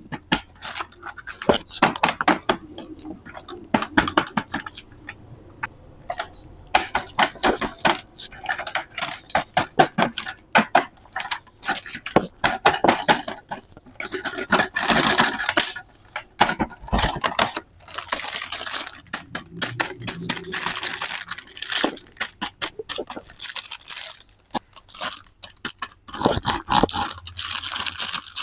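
Toy car play set being unpacked and handled: many small clicks and clinks of hard plastic and small metal toy cars, with stretches of packaging tearing and crinkling.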